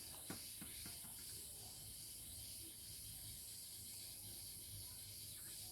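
Quiet room tone: a steady faint hiss with a low hum, and a few light clicks in the first second.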